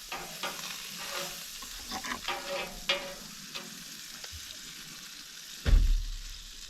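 Camp-stove cooking: a steady hiss under light clinks and knocks of cookware being handled, with one louder bump near the end.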